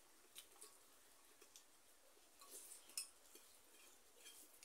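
Faint, scattered small clicks and smacks of eating rice and curry by hand from a plate, the loudest about three seconds in, over near silence.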